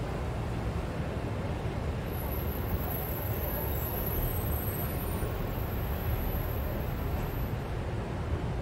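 Steady urban traffic ambience: an even low rumble of road vehicles with no distinct passes, and a faint thin high whine from about two seconds in until near the end.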